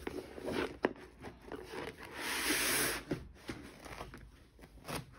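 Cardboard shipping box being opened by hand: fingers rub and tap on the cardboard. About two seconds in there is a tearing scrape lasting about a second as the end flap is pulled open.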